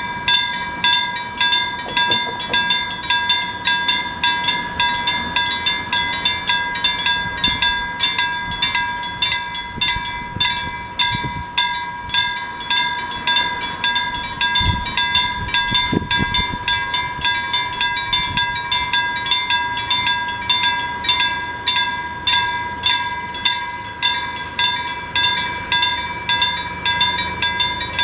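Level crossing warning bell ringing in rapid, even strokes, a little over two a second, while the barrier arms are lowered: the signal that a train is approaching.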